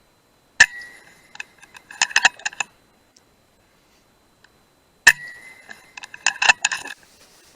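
Two shots from an FX Dreamline .177 PCP air rifle, each a sharp crack with a brief metallic ring. Each shot is followed about a second and a half later by a quick run of metallic clicks as the action is cycled for the next pellet.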